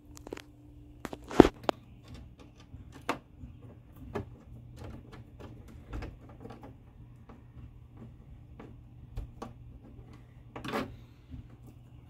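Wire strippers clicking and snapping as they strip 10-gauge wire, with a sharp snap about a second and a half in, then scattered small clicks and knocks as the stripped wires are fitted into the inverter's terminals. A low steady hum runs underneath.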